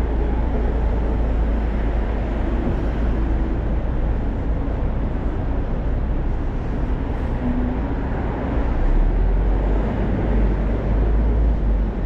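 City street ambience: steady traffic noise from cars passing on the road, with a constant low rumble.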